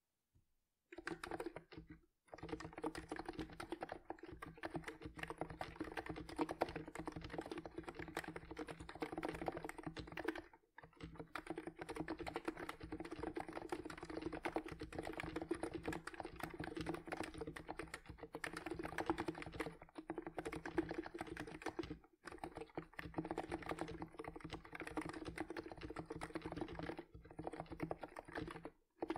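Typing on a Cox Endeavour TKL keyboard with 50 g electro-capacitive Topre-clone switches under Gliging Japanese Cherry profile keycaps: a fast, steady stream of keystrokes starting about a second in, broken by a few brief pauses.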